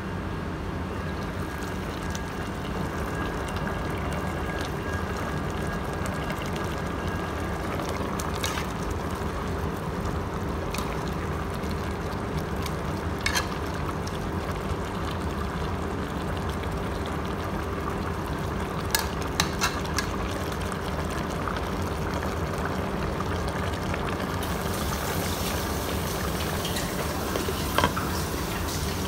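Pot of chicken tinola broth simmering on the stove, a steady bubbling hiss, with a few sharp clinks as the glass lid is lifted off and set back on.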